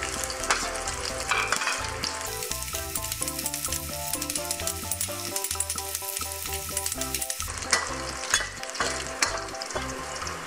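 Smashed garlic cloves sizzling in hot oil in a stainless steel wok on medium heat, stirred with a metal spatula that clicks and scrapes against the pan. The sizzle is brighter and louder from about two seconds in until about three seconds before the end.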